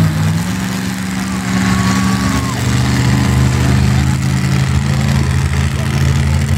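Monster truck engine running loud and low, holding a steady pitch with small shifts up and down.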